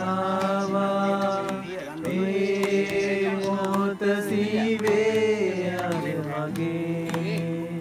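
Background music: a held, chant-like vocal line sung over a steady low drone.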